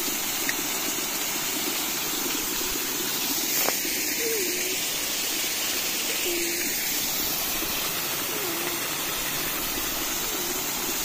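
Steady rush of running water, an even continuous hiss with no break.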